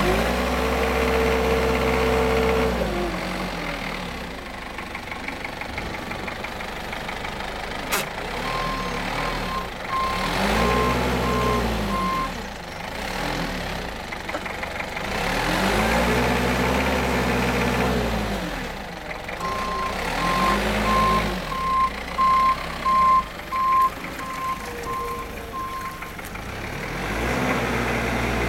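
Forklift engine revving up and falling back several times as the truck manoeuvres with a bale clamp. A reversing alarm beeps about twice a second in two spells, the longer one in the second half. A single sharp click comes about eight seconds in.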